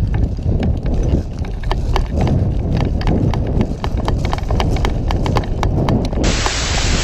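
Running footsteps thudding on dry ground with gear rattling, heard close up from a body-worn camera. A loud burst of hiss starts suddenly near the end.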